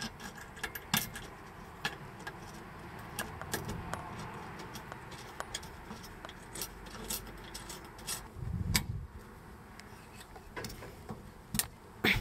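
Irregular small metallic clicks and taps as a bolt, washer and nut are worked by hand into an aluminium solar-panel mounting bracket on a roof rail, with a short low rumble a little past the middle.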